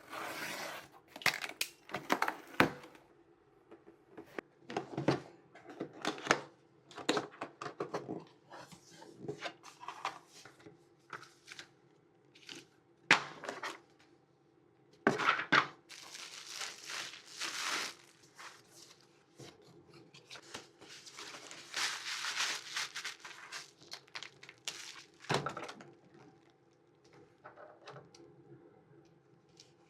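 Camera box and packaging being handled and opened: irregular clicks and knocks of cardboard, with stretches of wrapping crinkling and rustling.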